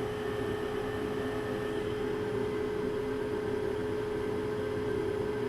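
Steady machine hum: one constant mid-pitched tone over an even fan-like hiss, unchanging throughout.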